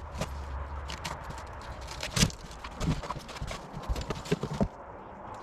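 Irregular knocks, taps and rustling of boxed parts and packaging being handled and moved about, with a sharper knock about two seconds in.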